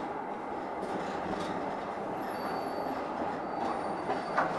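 Munich P-series tram running on street track, heard from inside the car: a steady rumble of wheels and running gear. Thin high-pitched tones join about halfway through, and there is a brief louder noise near the end.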